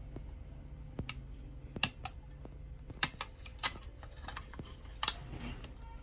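Scattered clicks and knocks of the hard plastic housing parts of a Ricoh MP 401/402 copier drum unit being handled and fitted together, over a low steady hum.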